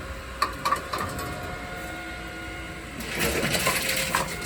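Tomra T-53 reverse vending machine taking in a plastic bottle: a few clicks early, then a steady mechanical hum, with a louder whirring for about a second near the end as the machine works the bottle.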